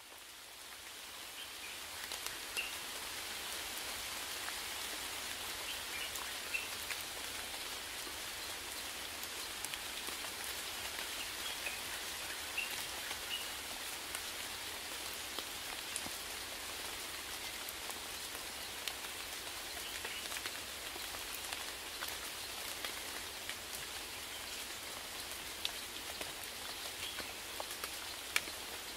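Steady rainfall in a forest, with many individual drops ticking and pattering on leaves, fading in over the first couple of seconds. A few faint, short, high chirps come through the rain in the first half.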